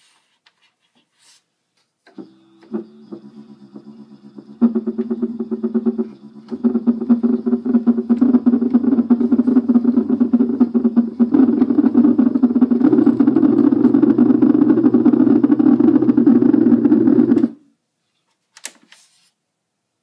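Casio electronic keyboard sounding a dense cluster of low notes that pulses rapidly, imitating an engine running. It starts about two seconds in, grows louder in steps, then cuts off suddenly a few seconds before the end, followed by one short click.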